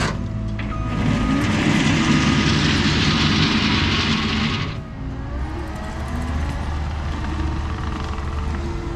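Cat 299D3 compact track loader's diesel engine running under load while it spreads limestone gravel with its bucket, with a loud rush of noise from about one to five seconds in, then a dip and swing in the engine note as it changes direction.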